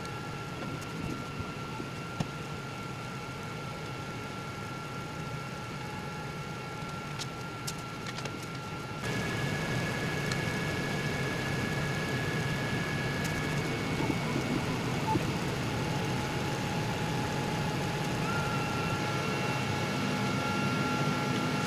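Bambu Lab A1 3D printer running a print: its motors whine in steady tones that jump between pitches as the print head moves, over a steady whir. The sound steps up abruptly about nine seconds in.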